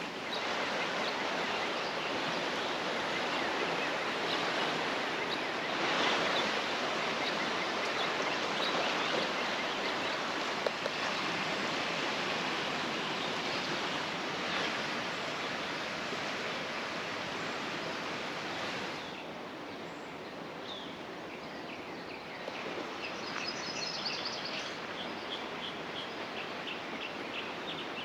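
Creek water rushing steadily. About nineteen seconds in it drops a little quieter, and from about twenty-two seconds a small bird chirps over the water again and again.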